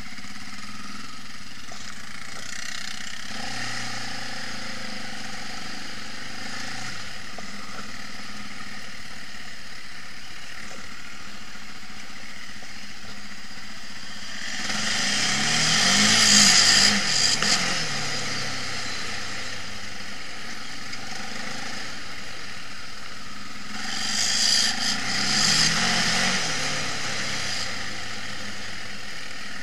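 Quad bike (ATV) engines running steadily. About halfway through, a quad drives close past, its engine revving up and down and getting loud. A second, shorter revving pass comes a few seconds before the end.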